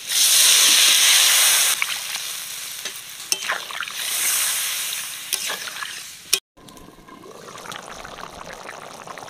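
Water poured into hot oil and spices in a kadai sizzles loudly, with a metal spatula clicking and scraping against the pan as the curry is stirred. After a cut about six and a half seconds in, the watery curry is heard boiling more quietly.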